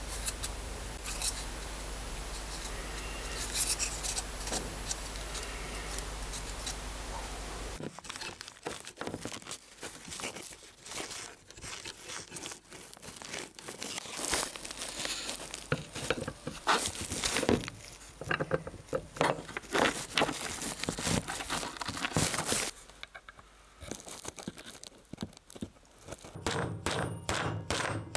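A stick stirring thick grease in a tin, with small sticky clicks over a steady low hum. About eight seconds in, this gives way to metal parts of a hand drill being handled and screwed together on a wooden bench: irregular light clicks and scrapes, ending in a quick run of regular clicks.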